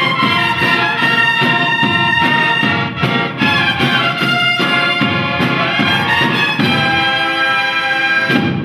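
Processional march played by a cornet and drum band: brass cornets carry the melody in harmony over a steady drum beat.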